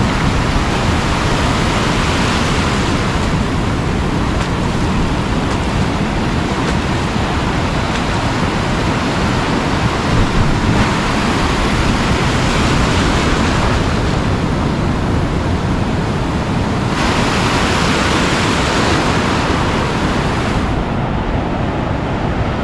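Ocean surf breaking and foam washing over a shallow beach: a steady, loud rush of noise whose hiss dulls near the end.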